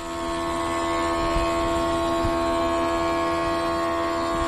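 Industrial thickness planer running at constant speed, a steady tonal whine with many overtones.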